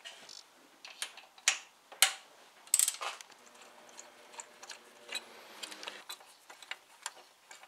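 Hand tools working bolts out of the power-steering pump bracket on an Audi V6 engine: scattered sharp metallic clicks and clinks, with a denser run of small ratchet-like ticks around the middle.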